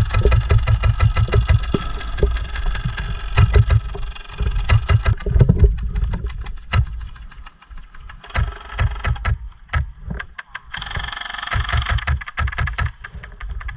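Airsoft guns firing in rapid bursts of clicks, over a low rumble.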